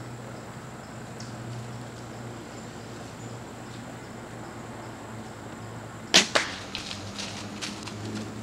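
A bow shot at close range: a loud, sharp crack of the string release and arrow striking the whitetail buck about six seconds in, a second crack a quarter second later, then a quick run of crackles as the hit deer bolts through dry leaves and brush.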